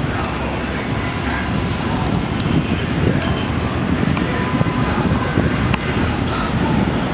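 New York City subway train approaching on elevated track: a steady low rumble of wheels on rail, with a few sharp clicks along the way.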